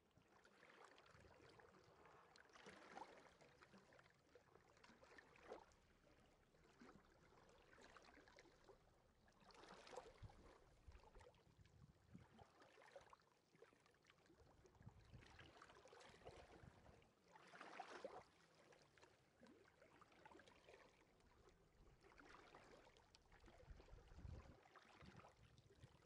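Faint sea waves washing onto a beach, the wash swelling and fading every few seconds.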